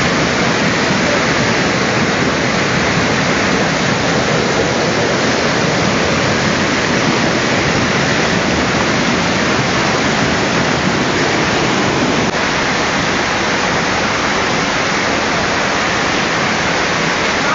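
Loud, steady rush of river whitewater pouring and splashing over boulders in a small cascade.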